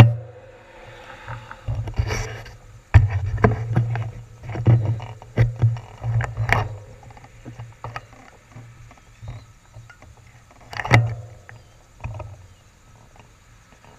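Wind gusting over a handlebar-mounted action camera's microphone: irregular low rumbles that swell and fade, with sharp pops about 2, 3, 6.5 and 11 seconds in.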